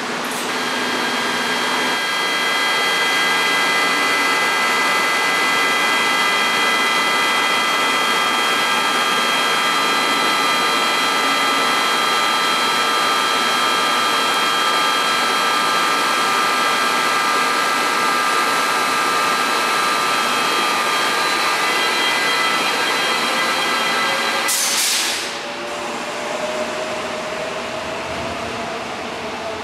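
Korail electric multiple unit standing at the platform, its equipment giving a steady high-pitched whine of several tones. About 25 seconds in, a short loud hiss of air. The whine then fades and a motor whine slowly rises in pitch as the train starts to pull away.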